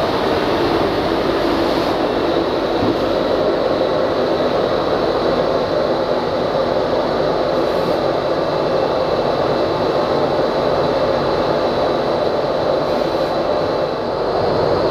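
Wieland FS 216 industrial vacuum for coolant and metal chips running steadily: its vacuum pump makes an even rushing noise, with a faint high whine.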